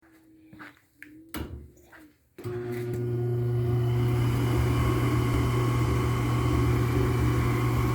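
A few soft clicks, then a gas furnace's blower motor starts about two and a half seconds in and runs with a steady hum. This is the start of the furnace's firing sequence, ahead of ignition.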